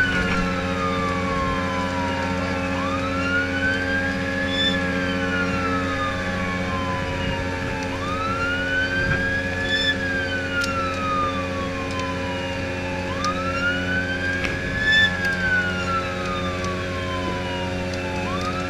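Emergency siren in wail mode: it rises quickly and falls slowly, one cycle about every five seconds, over the steady drone of the rescue boat's engine.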